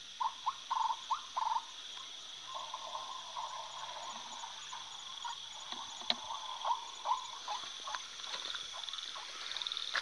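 Night-time outdoor animal sounds: a steady high insect trill, with a run of about five short calls in the first second and a half, then a quieter continuous chorus of calls, and a single sharp click about six seconds in.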